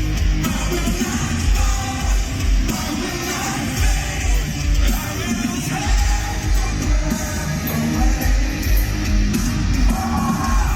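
A live heavy metal band playing at concert volume, with a singer's vocals over distorted guitars and a pounding kick drum.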